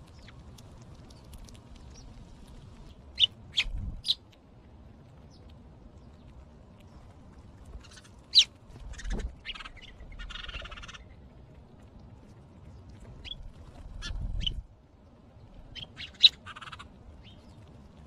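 House sparrows giving short, sharp chirps in small scattered clusters, with a brief rustling sound about ten seconds in and an occasional low rumble underneath.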